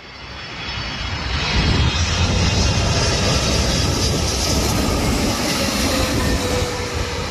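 Jet engines of a widebody twin-engine airliner on final approach, passing low overhead. The sound builds over the first two seconds, then holds as a steady loud rumble, with a faint whine that drops slightly in pitch near the end.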